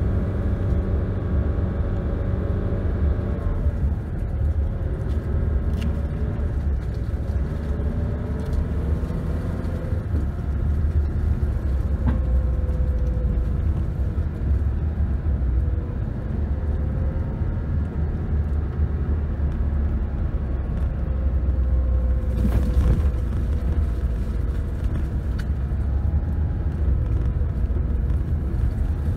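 Car driving at low speed: a steady low rumble of engine and tyres, with an engine hum whose pitch drifts gently up and down, and a couple of brief knocks.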